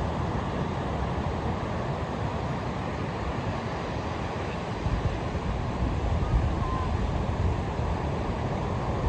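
Ocean surf washing onto a beach as a steady rush, with wind buffeting the microphone in gusts, heavier from about five seconds in.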